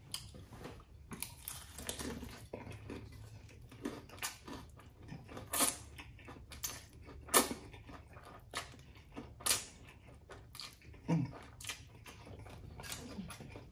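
A person eating close to the microphone: slurping and sucking in spicy instant noodles and chewing, with a run of short wet smacks and sucks, several of them louder.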